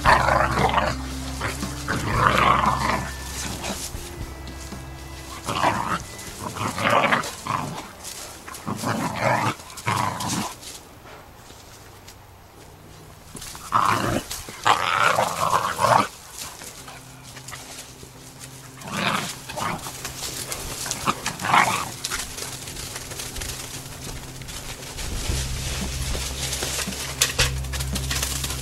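Young hunting dogs play-fighting, giving short bursts of barks and growls every second or two, with a quieter pause around the middle.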